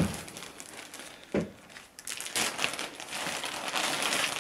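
Thin clear plastic bag crinkling and crackling as it is handled and pulled open by hand, with a dull knock about a second and a half in.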